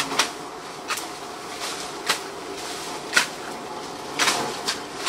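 Blades slashing through weeds and dry brush by hand: irregular sharp cuts about a second apart, with the rustle of stalks falling.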